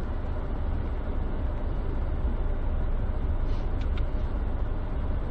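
Steady low rumble with a hiss heard inside a stopped car's cabin, the sound of the car idling on a wet street.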